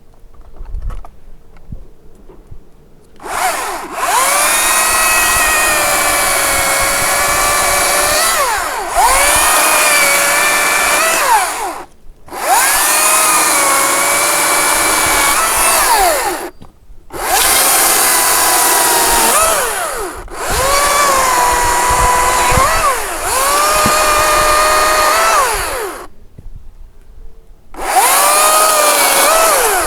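Makita 40V cordless top-handle chainsaw's electric motor whining in six runs with short pauses between. Its pitch dips and recovers within each run as the chain cuts through dead branches.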